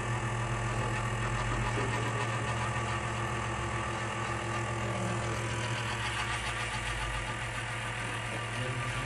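APC SRV2KI online UPS running with its output enabled: a steady electrical hum made of many fixed tones, strongest low down, holding even as the unit delivers stable 230 V output.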